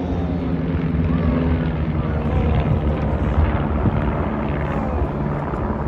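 Several home-built single-engine propeller aircraft in formation passing overhead, their piston engines droning together. The engine notes slide downward in pitch as the aircraft pass and break one after another into a pitch-up turn.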